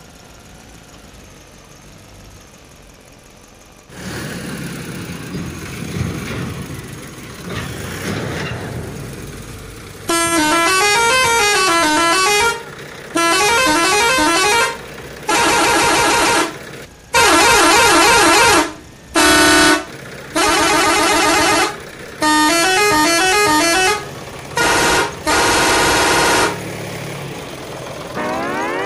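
Loud electronic horn-like tones in a string of bursts of one to two seconds each, their pitch warbling up and down like a siren, starting about ten seconds in. Before them comes a quieter stretch of rough noise.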